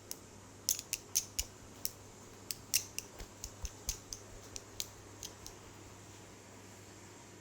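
A quick, irregular run of about twenty sharp, crisp clicks or snips, stopping about five and a half seconds in.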